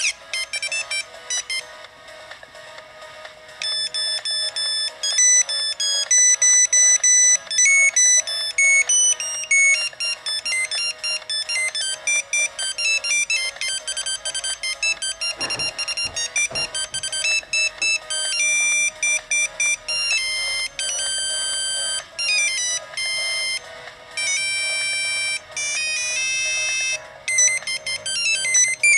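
Ericsson T20s mobile phone playing its built-in monophonic ringtones one after another: bright, buzzy beeping melodies, one note at a time, the tune and tempo changing several times.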